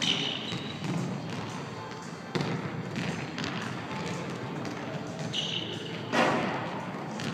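Basketball bouncing on a gym's hardwood floor, a series of dribble impacts echoing in the large hall. The loudest impact comes about six seconds in.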